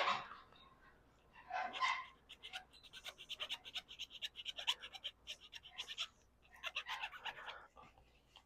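Small hand file rasping back and forth on a cast part of a turn signal switch in quick short strokes, dressing off casting burrs where the part fits too tight.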